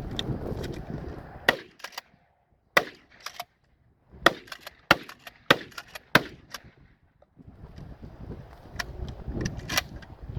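Remington 870 Marine Magnum 12-gauge pump shotgun firing a quick string of about six sharp shots, with fainter clicks among them. Wind rumbles on the microphone before and after the shots.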